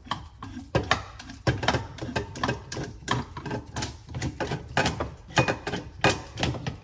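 Metal parts of a diesel injector puller tool clicking and knocking irregularly as they are turned and unscrewed by hand.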